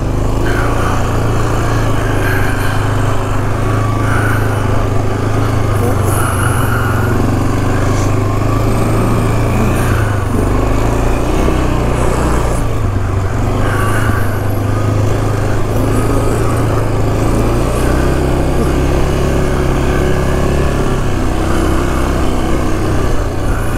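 Yamaha Grizzly 450 ATV's single-cylinder four-stroke engine running steadily while the quad is ridden along a rough trail, a low engine rumble with an even hiss over it.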